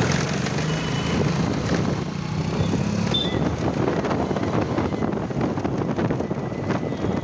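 Moving two-wheeler in town traffic: steady engine and road rumble with wind buffeting the microphone. A few short high beeps from traffic come about a second in and again about three seconds in, and a thin steady tone starts near the end.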